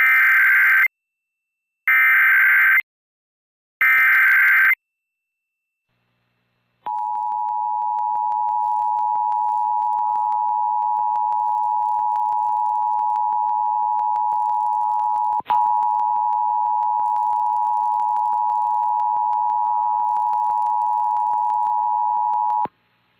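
Emergency Alert System broadcast alert: three one-second bursts of warbling SAME header data tones, about a second apart, then about two seconds of silence. Then the EAS attention signal, a steady two-tone beep, sounds for about sixteen seconds, with a brief break about halfway through, and cuts off. Here it announces a tornado warning.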